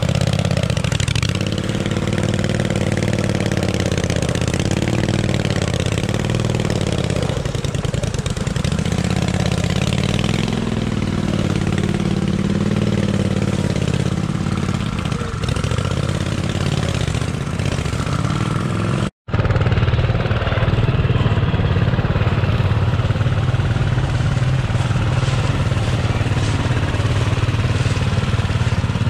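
Off-road vehicle engine running under varying throttle, its pitch rising and falling again and again. A sudden brief dropout comes about two-thirds of the way through, and the engine then runs more steadily.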